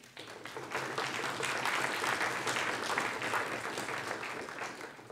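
Audience applauding at the end of a talk: the clapping swells within the first second and fades out near the end.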